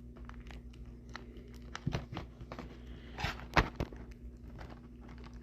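Scattered light clicks and knocks of a plastic disc case and its packaging being handled as it is opened, with a few louder taps about two and three and a half seconds in.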